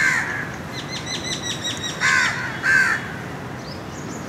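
Birds calling: about three loud, hoarse, arching calls, with a run of quick, high chirps from a smaller bird between them.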